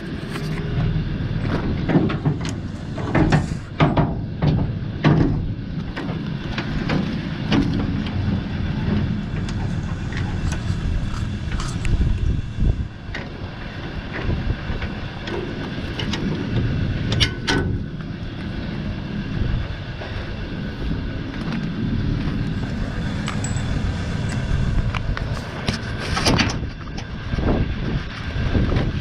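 Metal clanks and knocks of a small trailer's drawbar, jockey wheel and coupling being handled and lowered onto a tow ball, scattered through the stretch over a steady low rumble.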